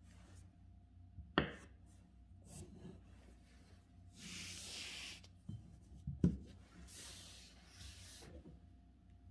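A hand sliding a sheet of calligraphy paper across the desk: two longer rustling rubs, with a sharp knock about a second in and another about six seconds in.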